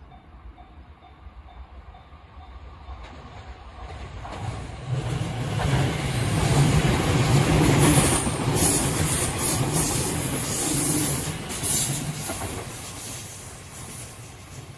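JR East E257 series 5500 electric multiple unit passing close by at speed: the noise of its wheels on the rails builds as it approaches, is loudest for several seconds as it goes past, then fades as it moves away.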